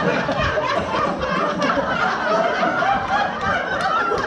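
Audience laughing and chuckling together, many voices at once.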